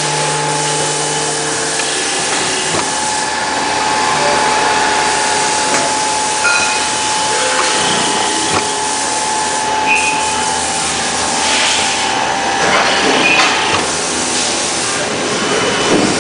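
Riveting machine running: a steady, loud mechanical noise with a hiss and a held tone, with a few faint clicks and short high beeps now and then.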